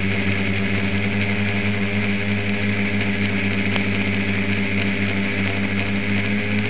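A tricopter's motors and propellers running steadily in flight, heard close up from a camera mounted on the craft: an even hum at a steady pitch with a thin high whine above it. There is one short click a little past the middle.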